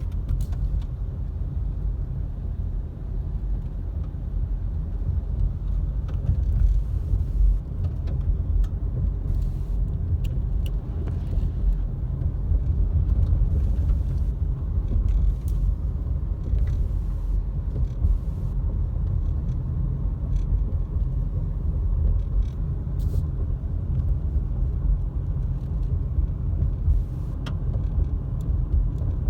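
Steady low rumble of a car driving, heard from inside the cabin, with a few faint scattered clicks.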